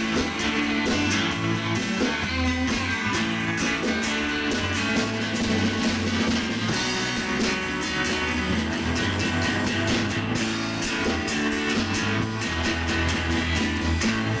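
Live instrumental rock band: electric lead guitar on a Fender Stratocaster over bass guitar and a drum kit keeping a steady beat.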